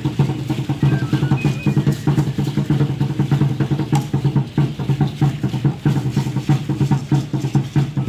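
Aztec danza drumming: a large drum beaten in a fast, steady beat, with the shaking of the dancers' seed-pod ankle rattles (ayoyotes) over it.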